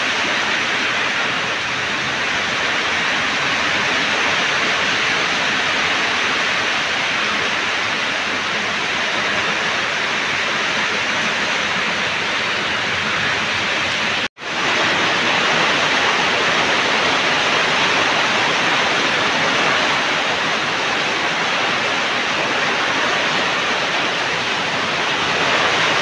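Heavy rain pouring down in a steady, loud hiss. It cuts out for an instant about halfway through.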